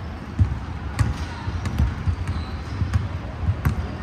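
Basketballs bouncing on a hardwood gym floor: irregular low thumps, several balls at once, with a few sharper smacks among them, in a large echoing hall.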